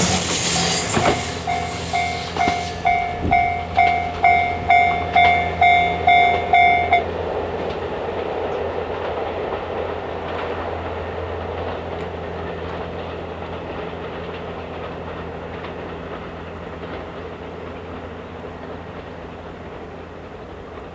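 Series 87 Twilight Express Mizukaze diesel-hybrid train rushing past and then rumbling away, fading steadily with a low engine hum. Over it, a level-crossing alarm bell dings about twice a second and stops about seven seconds in, as the crossing clears.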